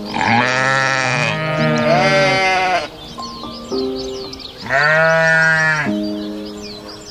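Goat bleating: two long, wavering bleats back to back, then a third about five seconds in, over calm background music with held notes.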